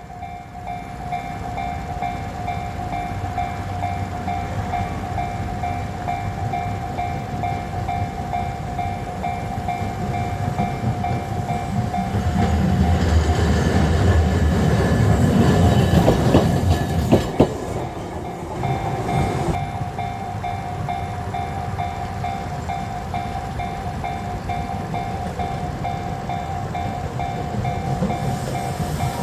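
A level-crossing alarm rings steadily with a repeating electronic bell tone. About twelve seconds in, a streetcar passes over the crossing: a swelling low rumble of motor and wheels, with sharp clacks as the wheels run over the rail joints. The rumble fades after about seven seconds, and the alarm goes on ringing.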